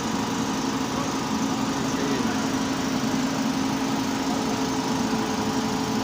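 An engine running steadily at idle, an even drone that does not change.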